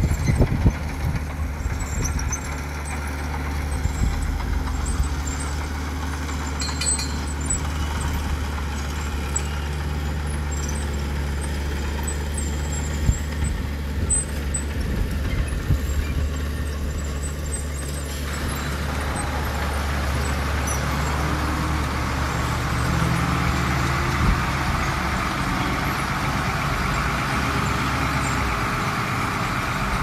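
Diesel dump truck engine running with a steady low hum as the truck tips its load of dirt. About two-thirds of the way through, a rougher, noisier sound comes in over it and gets slightly louder, as the truck pulls away.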